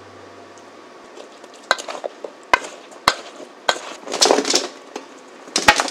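Wooden spoon knocking and scraping as it tosses chopped vegetables in a bowl, a few separate clacks at first. About four seconds in, the vegetables are tipped and scraped out of the bowl onto a parchment-lined baking sheet, with a denser run of scrapes and thuds.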